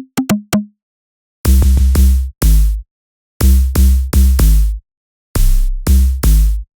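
Synthesized electronic percussion from the Backbone drum re-synthesizer: three short, clicky pitched hits, then three phrases of about four heavy hits each, with a deep low end and a noisy top.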